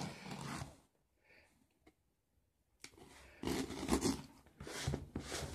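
Cardboard shipping box being handled and shifted on a wooden table, with a few scraping, rustling noises after a short quiet gap.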